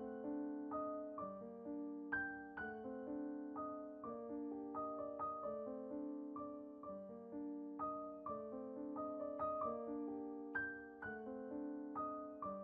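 Soft background piano music: a gentle melody of single struck notes, each fading away.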